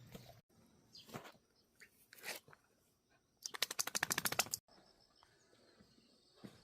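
A dachshund shaking itself, its long ears flapping in a rapid burst for about a second, a little past the middle, after a few soft rustles.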